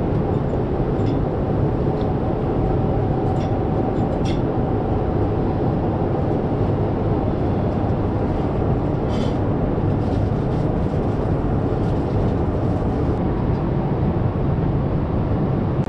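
Steady roar of engine and airflow noise inside the cabin of a Boeing 787 Dreamliner airliner in flight, with a few faint clicks.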